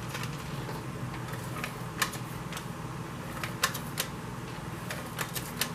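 Scattered small clicks and taps at uneven spacing from paper card pieces and an adhesive being handled on a craft tabletop, over a steady low hum.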